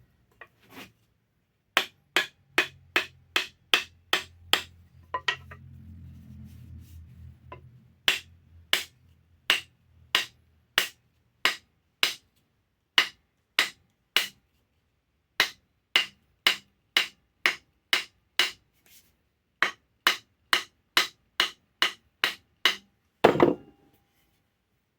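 Repeated sharp hammer blows, about two to three a second in runs of several strokes with short pauses, driving an axe head down onto its wooden handle for a tight fit before wedging. A heavier, longer knock comes near the end.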